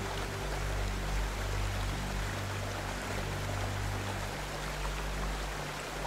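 Steady rushing of flowing river water, with soft, low, held notes of background music underneath.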